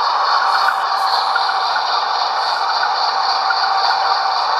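Model Via Rail GE P42 diesel locomotive's LokSound DCC sound decoder playing diesel engine sound through its small onboard speaker, a steady hum with a faint pulse about three times a second, while the model rolls along the track.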